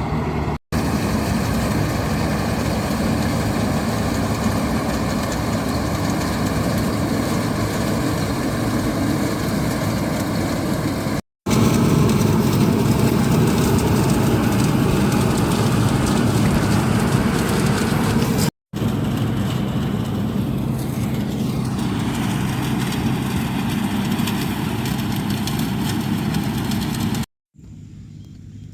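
Heavy diesel engine of farm machinery running steadily, heard across several spliced clips that cut off abruptly; after the last cut, near the end, it is much quieter.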